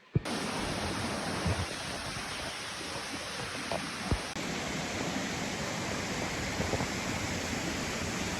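Steady rushing water from the waterfall or its stream, a constant even roar. It starts abruptly with a click a moment in, and there is a faint knock near the middle.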